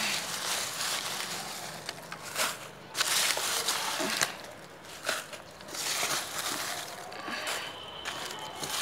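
Kitchen scraps, dry onion peels and leaves rustling and crackling in irregular bursts as they are handled and dropped into a metal bucket.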